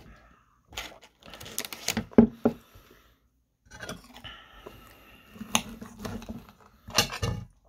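A metal fork clinking and scraping against a plate while picking at chicken katsu, with sharp knocks of things being handled and set down. The sounds come in irregular clusters, the loudest knock about two seconds in, and stop for about a second midway.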